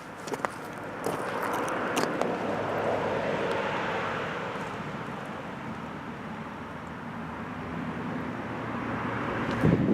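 A passing vehicle: a broad engine-and-road noise that swells, fades and swells again over several seconds, ending in a short low thump.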